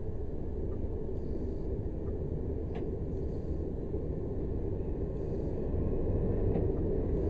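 Lorry's engine running with a steady low rumble that gets a little louder about six seconds in.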